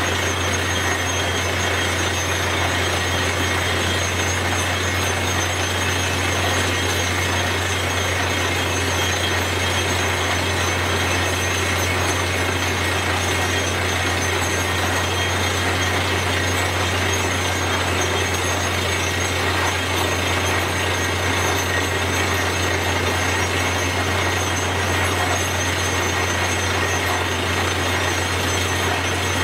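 Truck-mounted borewell drilling rig running steadily at normal compressor pressure. Its engine and air compressor make a constant low hum, over a dense rushing noise as compressed air blows dust and cuttings out of the hole.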